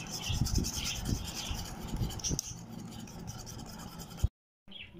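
Hand wire whisk beating raw eggs into mashed banana in a bowl: quick, continuous scraping and sloshing strokes of the wires against the bowl. The sound stops abruptly a little after four seconds in.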